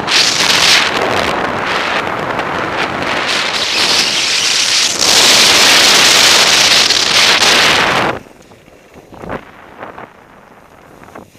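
Wind buffeting a Contour HD action camera's microphone during a fast downhill ski run, with the skis hissing over packed snow. About eight seconds in the rushing drops away sharply, leaving faint scrapes and clicks.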